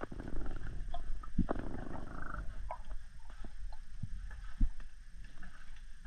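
Underwater sound heard through a camera housing on a freedive in a kelp forest: a low rumble with scattered clicks and knocks, the sharpest a little past four and a half seconds in.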